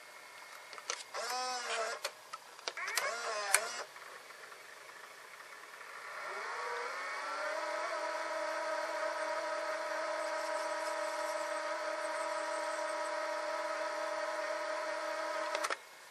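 Sony EV-C8u Video8 cassette recorder's tape mechanism whirring twice briefly with a wavering pitch as it changes mode, then its reel motor spinning up in rewind with a rising whine that settles into a steady hum and cuts off abruptly near the end.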